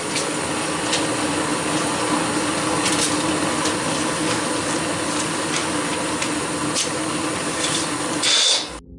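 A machine running steadily with a loud rushing hiss over a low hum and a few faint clicks, cutting off suddenly near the end.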